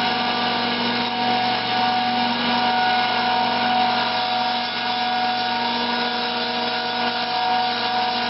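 Sioux valve face grinding machine running steadily, a whine of several steady tones over a hiss, as its wheel grinds the 45-degree face of a cast-iron engine valve in full contact all around the face.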